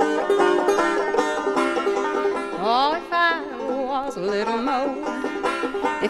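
Instrumental break of an old-time folk song: a banjo picking rapid notes, with a sliding, wavering melody line coming in about halfway through.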